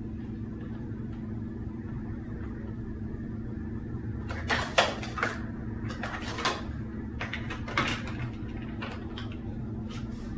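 Sharp clicks and rustles of a chocolate box and its plastic tray or wrappers being handled, bunched together around the middle, over a steady low hum.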